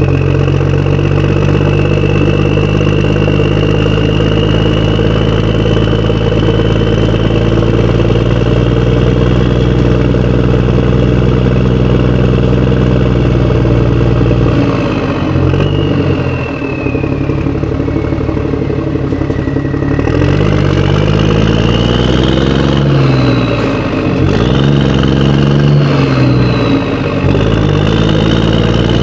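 Motorcycle engine running at a steady speed, then dropping and climbing in speed several times in the second half, as when slowing and pulling away again.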